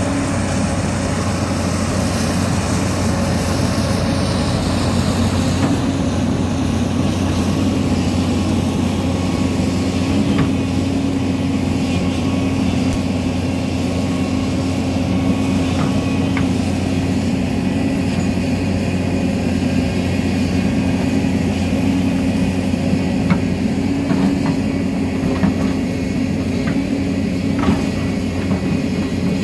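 Hyundai Robex hydraulic excavator's diesel engine running steadily under load with its hydraulics while the bucket digs into a dirt bank, with a few faint clicks near the end.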